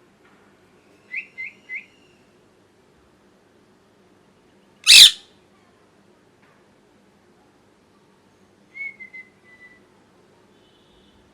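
Pet ringneck parrot calling: a quick run of three short chirps about a second in, one very loud, short scream about five seconds in, and a brief falling call near the nine-second mark.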